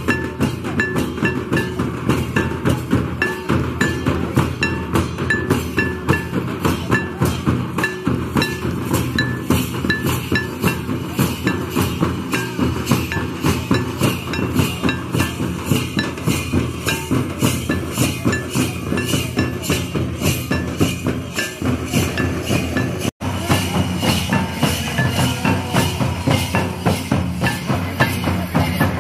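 Santali folk drumming: a tamak' kettle drum and a tumdak' barrel drum played together in a fast, even beat, with a metallic clink on the beats. The sound cuts out for an instant about 23 seconds in.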